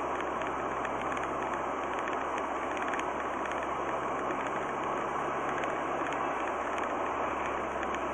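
Steady engine and tyre noise of a car cruising at about 60 km/h, heard from inside the cabin, with a low, even hum underneath.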